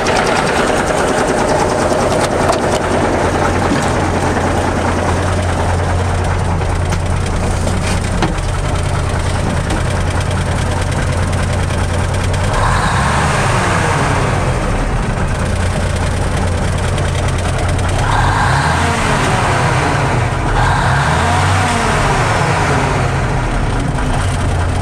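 1986 Ford LTL 9000 log truck's diesel engine idling steadily, its speed raised and let back down briefly about three times in the second half.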